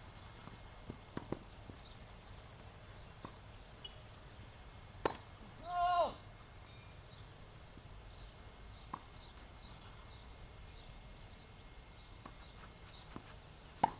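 Tennis ball pops off rackets and the court in a singles rally: a handful of sharp single pops, the loudest about five seconds in and just before the end. A short shout rings out about six seconds in.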